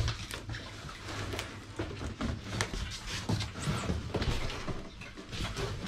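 Irregular rustling, scraping and light knocks of a cardboard box and its packaging being handled around a boxed tool chest.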